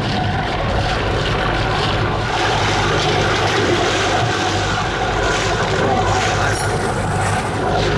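Whale-watching boat's engine running with a steady low hum, under a constant rush of wind and water.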